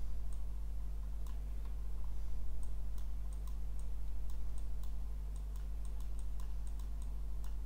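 Computer mouse button clicks, many short irregular clicks over a steady low electrical hum.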